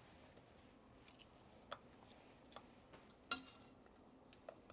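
Faint, scattered crinkles and clicks of foil wrappers being peeled off Cadbury mini cream eggs, with one slightly louder click about two-thirds of the way through.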